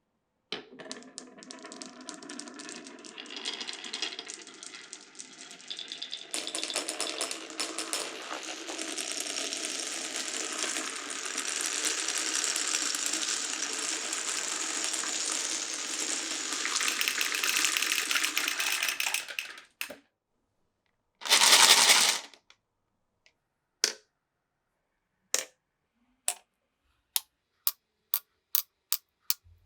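Many marbles rolling and clattering together along a marble run's tracks, a dense rattle that builds and then stops abruptly after about twenty seconds. After a short pause comes a brief loud rush, then a run of single clicks that come faster and faster.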